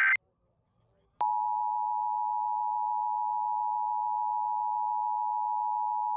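Emergency Alert System attention signal: a steady two-tone alert (853 and 960 Hz together) that starts abruptly about a second in and holds unchanged. It follows the clipped tail of a SAME digital header burst at the very start.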